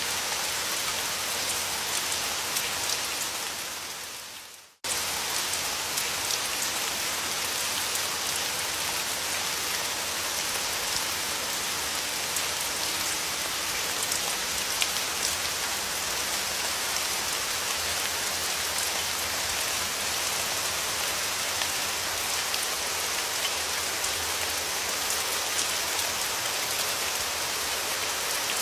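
Steady rain falling, a dense hiss flecked with fine drop ticks. Just under five seconds in it fades to silence for a moment, then cuts back in abruptly at full level.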